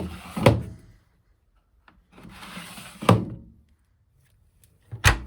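Plastic detergent drawer of an Electrolux Quickwash commercial washing machine sliding with a rub and shutting with a thunk, twice, then a sharp knock near the end.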